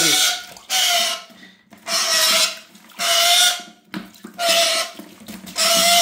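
Black-capped lory screeching while held in a bucket of water: about six harsh, loud calls, roughly one a second, each about half a second long. These are the distress screeches of an untamed, aggressive bird.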